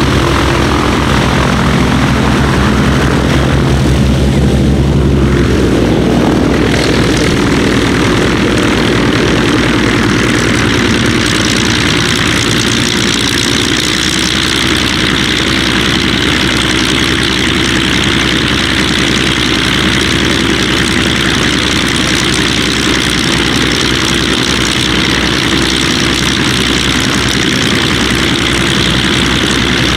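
De Havilland Dragon Rapide biplane's twin piston engines running at taxi power, a steady propeller drone; the engine note shifts about five seconds in and then holds steady.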